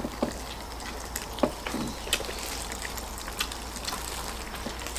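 Close-miked eating: wet chewing, lip-smacking and tearing of sauce-coated duck meat off the bone, with scattered short clicks and smacks over a faint low hum.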